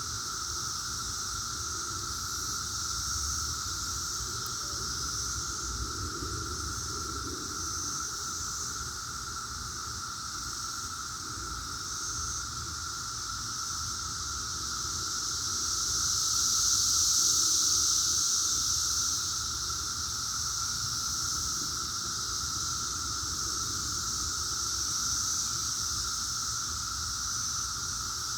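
Chorus of 17-year periodical cicadas (Brood X): a steady, loud droning buzz with a high shrill layer over a lower steady hum. It swells louder about halfway through, then eases back.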